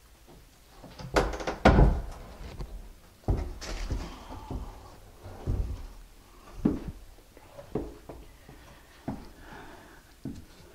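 A drop-in bathtub knocking and bumping against the floor and wall as it is lifted out and tipped up on end, with a cluster of loud thumps about a second in and scattered lighter knocks after.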